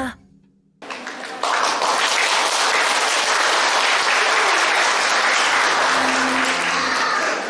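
Audience applause: a brief hush, then clapping that starts about a second in, quickly grows fuller and holds steady, easing off near the end.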